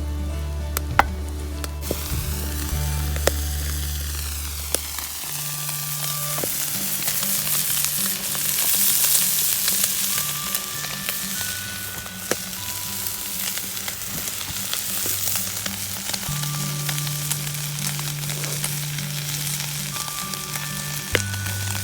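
Steady sizzling hiss with scattered sharp pops from a wood-burning camp stove, swelling louder around the middle. Background music with sustained low notes plays underneath.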